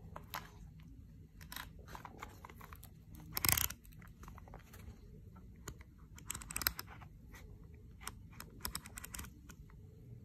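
Handling noise from an Asus TUF Gaming H3 headset turned over in the hands: scattered light clicks and taps, a louder brief rubbing rustle about three and a half seconds in, and more clusters of clicks later.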